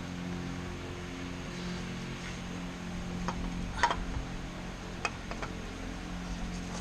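A few light clicks and taps of hand tools and parts being handled during an oil filter change, over a steady low hum.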